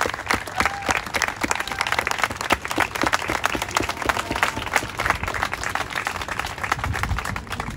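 A crowd applauding: many hands clapping densely and steadily.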